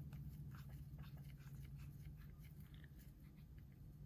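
Near silence: faint small clicks and taps of handling at a workbench over a steady low hum.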